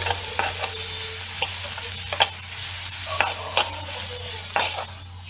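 Onions, tomato and green chillies sizzling in oil in a kadai while a spatula stirs them, knocking and scraping against the pan about a dozen times at an uneven pace. The sizzle eases a little near the end.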